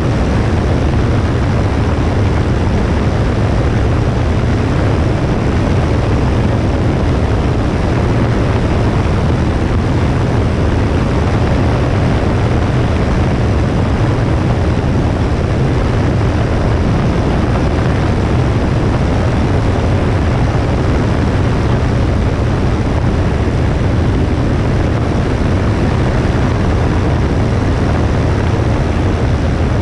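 Cessna 172S's four-cylinder Lycoming engine and propeller running steadily, heard from a camera on the wing as a deep, even drone under a constant rush of air noise with no change in power.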